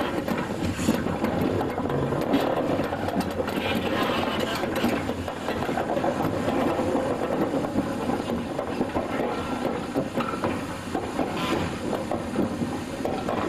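Class 50 steam locomotive moving slowly, a steady mix of working noise and rattling from the running gear and train.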